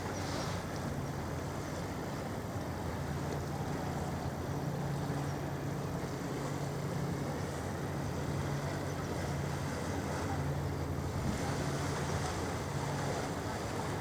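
A ferry's diesel engines droning steadily at a low pitch, with a constant hum.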